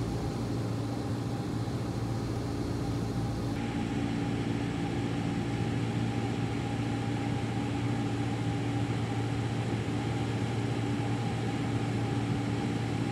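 Steady drone of a light aircraft's engine and propeller, one constant low hum with higher overtones over a rushing wind noise.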